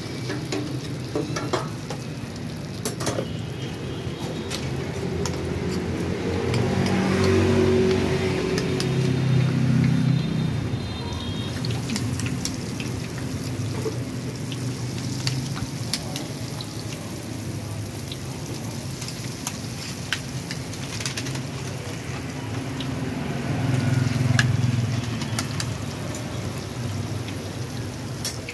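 Battered bananas deep-frying in woks of hot oil: a steady sizzle with many small crackles and pops. A low rumble swells twice, about a third of the way in and again near the end.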